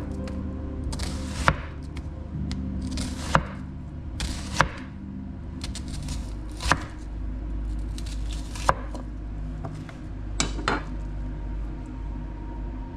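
Kitchen knife cutting an onion on a cutting board: a few slow, irregular strokes, each a brief slicing rasp ending in a sharp knock of the blade on the board.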